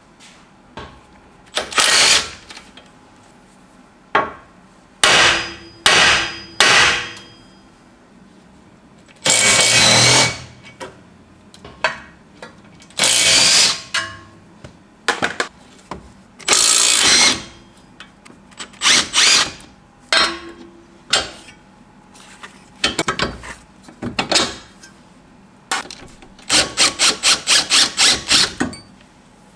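Power tools and hand tools at work on a car's rusted front suspension: repeated short bursts of a power tool, some about a second long, with a quick run of about a dozen rapid strikes on metal near the end.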